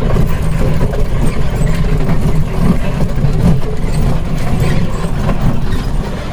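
Steady low rumble of a tourist vehicle driving along, heard from on board.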